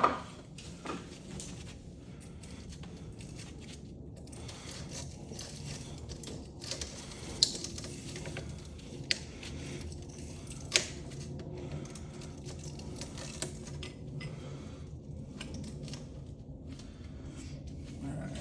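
Metal tool-and-part handling on a bench: a few sharp, isolated clicks and clinks, the clearest about a third and halfway through, over a faint steady hum.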